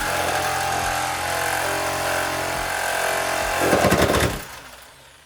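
A power tool running loudly and steadily, with a rapid hammering burst near the end before it stops about four seconds in.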